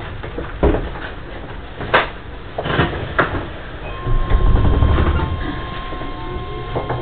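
Electric commuter train at a station platform: a few sharp knocks, then the doors sliding shut with a low rumble about four seconds in, and near the end the traction motors start to whine, rising in pitch as the train pulls away.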